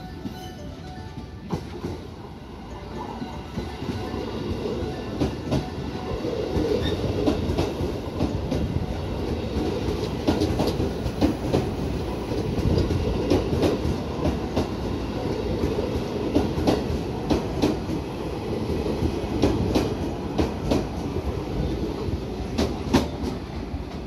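JR West 221 series electric multiple unit rolling past at close range, its rumble building over the first few seconds and then holding steady, with a run of clickety-clack clicks as the wheels cross rail joints.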